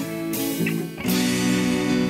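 Rock music carried by guitars playing held chords; the sound dips briefly just before a second in, and a new chord comes in.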